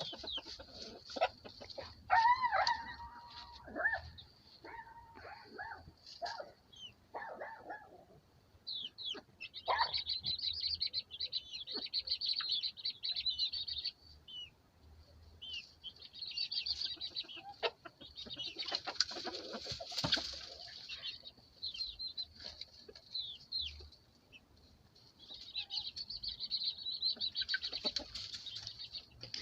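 Chickens clucking and young chicks cheeping in dense high runs, with bursts of wing flapping: a rooster is picking on the young birds. The clucking comes mostly in the first few seconds, and the cheeping comes in three long runs later on.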